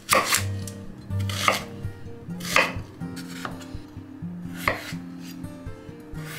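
Chef's knife cutting through a red onion and then a peeled potato on a wooden chopping board: about six slow, separate cuts roughly a second apart, each ending in a sharp knock of the blade on the board.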